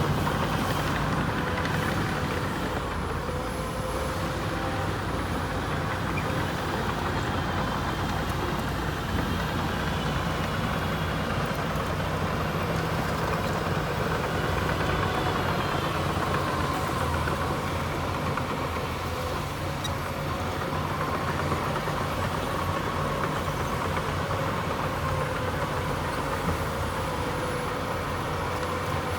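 Diesel engines of heavy earthmoving machinery running steadily, with faint higher whining tones over the engine drone.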